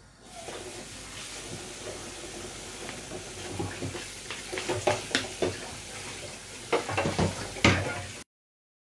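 Cooking pot on the stove: a steady hiss with several knocks and clatters of a utensil against the pot as an ingredient goes in. The sound cuts off abruptly about eight seconds in.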